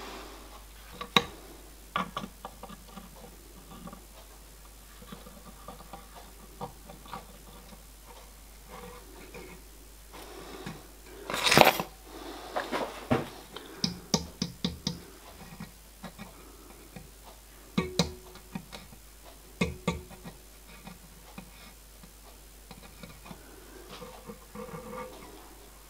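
Scattered clicks and knocks of small metal parts and tools being handled at a steel bench vice, with one louder knock about halfway through and quick runs of light clicks after it.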